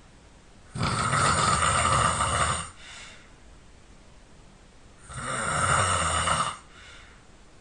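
A person snoring loudly: two long snores about four seconds apart, each followed by a brief, softer breath out.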